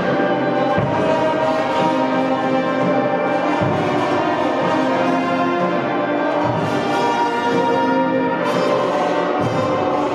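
School wind ensemble playing held full-band chords with the brass prominent. The bass notes change about every three seconds, and the sound grows brighter and fuller about eight seconds in.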